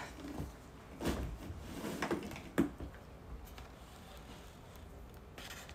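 Handling noises: a few short soft knocks and rustles, about one and two seconds in and again just after, with quiet between.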